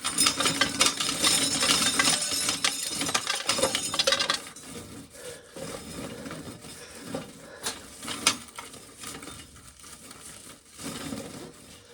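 Dry shelled corn kernels clattering into a tub, a dense rattle for about the first four seconds that then thins to scattered clicks and knocks.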